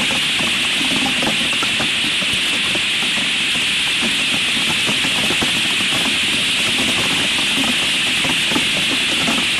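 Hail falling steadily through bare branches: a dense, irregular patter of small impacts over a constant hiss.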